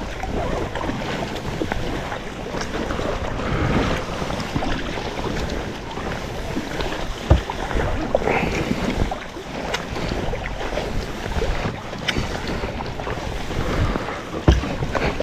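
Sea kayak on open water: wind buffets the microphone over the wash of water against the hull and paddles, with a few sharp knocks.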